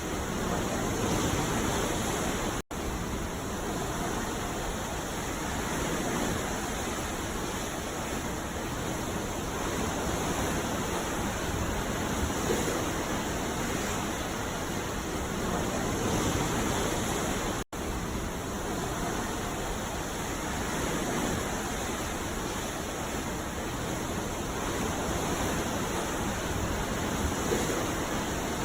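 Sea surf sound effect: a steady rush of water with slow swells every few seconds. It cuts out for an instant twice, first near the start and again a little past the middle.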